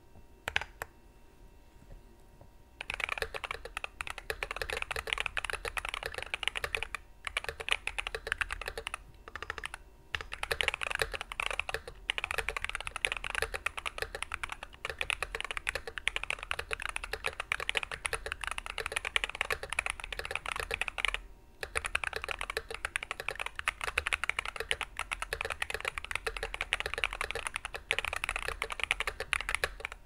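Fast, continuous typing on an Alpine65 custom mechanical keyboard with lubed Neapolitan tactile switches in a brass plate and PBT keycaps. A single sharp key click comes just under a second in, the steady typing starts about three seconds in, and it breaks for a moment a few times.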